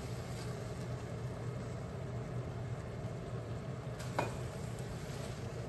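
Beaten egg sizzling softly as it is poured into a hot wok of stir-fried tofu, natto and garlic chives, over a steady low hum. About four seconds in, a spatula knocks against the wok with a short ringing scrape.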